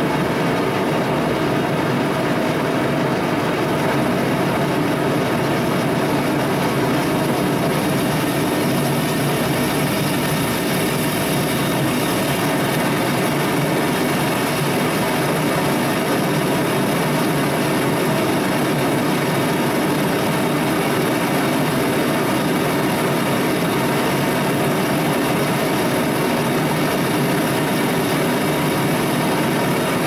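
Homemade propane venturi forge burner with a welding-tip jet, firing steadily with a continuous, even noise of rushing gas and flame.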